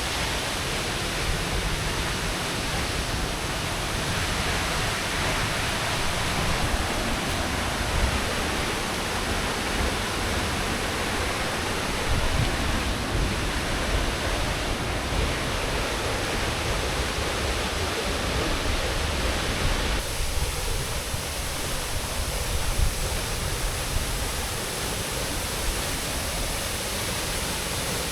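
Waterfall pouring, a steady rush of falling water with no break. The sound gets a little thinner about two-thirds of the way through.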